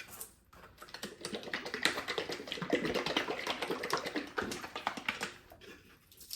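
A utensil stirring and scraping through food on a plate: a run of quick, irregular clicks and clinks, busiest in the middle.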